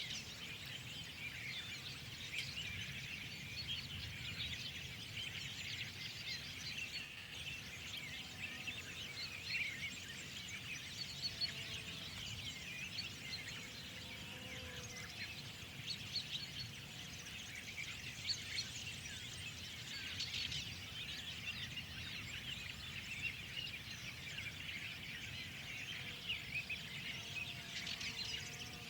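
Many songbirds chirping and calling together in a dense, continuous spring chorus, with a low steady rumble of background noise underneath.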